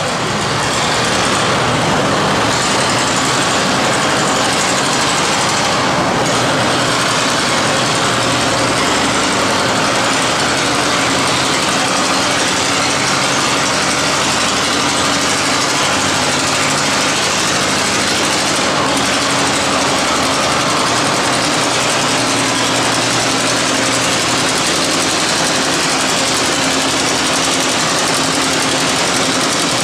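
Antique tractor engines idling steadily, with a dense, even din over them.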